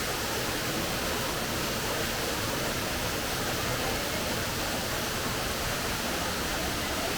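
Waterfall rushing as a steady, even roar of falling water.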